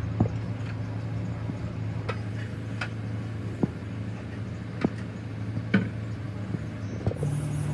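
A steady low machine hum, with sharp clicks and taps at irregular intervals, roughly one every second.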